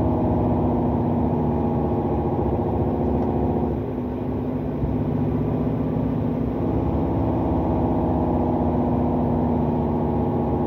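Heavy truck's diesel engine running steadily on the engine brake while descending a steep grade in gear, heard from the cab. Its level dips briefly about four seconds in.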